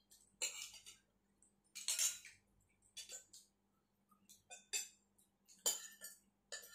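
Eating sounds close to the microphone: a spoon and fork clinking and scraping in a ceramic soup bowl, with slurps and mouth sounds, in five or six short separate bursts about a second apart.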